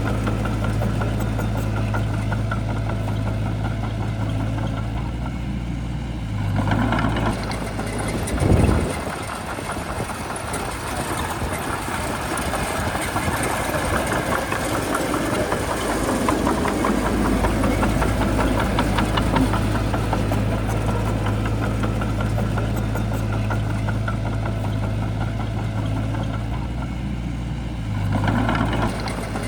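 Shantui bulldozer's diesel engine running steadily at work, with a brief swell and a loud surge about eight seconds in and again near the end; between them a rougher stretch of mechanical noise.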